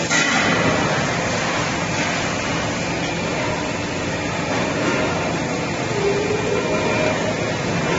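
Steady hiss and hum of factory machinery running, with a brief louder surge just at the start.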